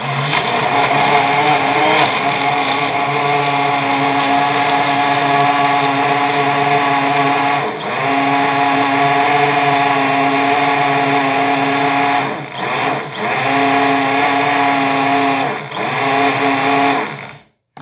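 Single-serve personal blender motor running loud and steady at one pitch, blending a smoothie with frozen banana and crushed ice. It cuts out briefly about eight seconds in and three more times in the last six seconds, then stops.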